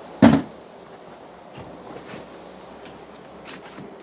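Handling noise: one sharp knock about a quarter second in, followed by scattered light clicks and scraping.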